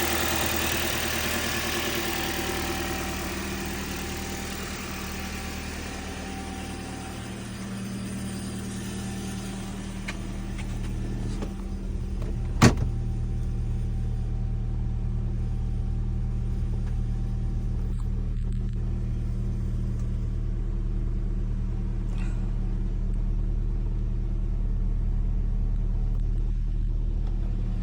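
A 2010 Toyota Corolla engine idling steadily, with the small noise that the owner can't place and wonders may be the timing chain. Its sound turns to a deeper hum about ten seconds in, and there is a single sharp click about halfway through.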